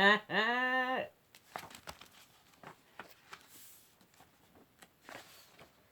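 A woman's voice holds one drawn-out sound for about a second, then the pages of a picture book are handled and turned: faint paper rustles and small clicks.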